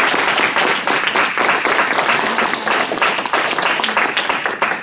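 Small audience applauding: many hands clapping close together. It dies away at the end.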